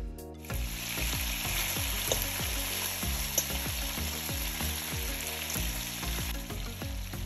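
Minced-meat balls sizzling in hot olive oil in a non-stick wok, the sizzle starting about half a second in and easing a little near the end. A fork turning them gives a couple of sharp clicks against the pan.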